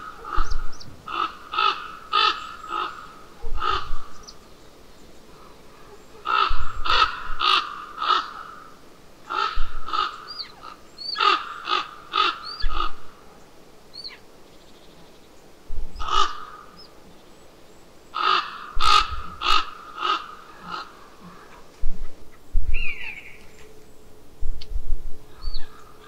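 Crows cawing in repeated bouts of short, harsh calls, several quick caws at a time, with a few faint small-bird chirps in between.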